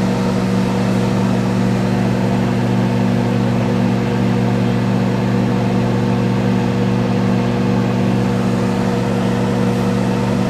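Microwave oven running, a steady hum that does not change while it heats.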